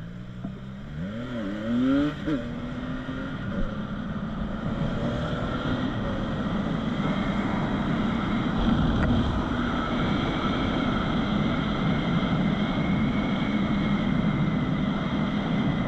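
CFMOTO 675NK three-cylinder engine, still on its stock exhaust with the catalytic converter in place, revving up and down in the first few seconds, then pulling steadily as a rush of road and wind noise builds with speed.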